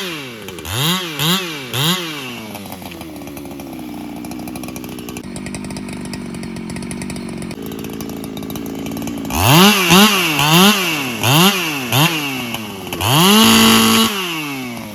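Solo 681 two-stroke chainsaw blipped through several quick revs, idling steadily for several seconds in the middle, then revved again in a string of short bursts and held at high revs briefly near the end before dropping off.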